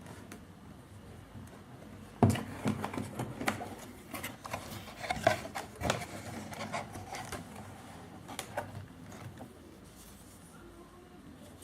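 Handling noises as a packaged product is unboxed: a loud knock about two seconds in, then a run of clicks, knocks and rubbing that thins out after about nine seconds.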